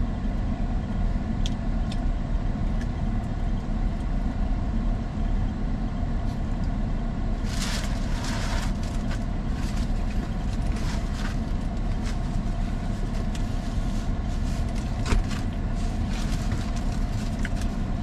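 Steady low rumble of an idling car, heard from inside the cabin, with a short rustle about eight seconds in and a few faint clicks.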